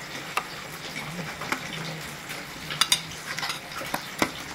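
Fingers squishing and mixing a wet mustard-and-spice paste in a stainless-steel bowl, a soft steady squelching, with a few sharp clicks against the steel, the loudest about three seconds and four seconds in.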